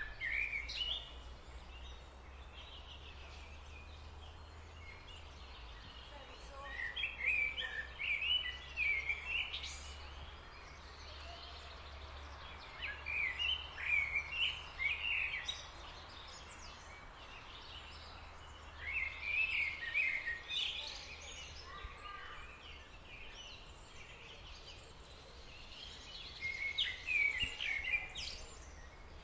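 A bird singing in bouts of quick, chirpy notes, about four or five short bursts of song with pauses between, over a steady low background hum.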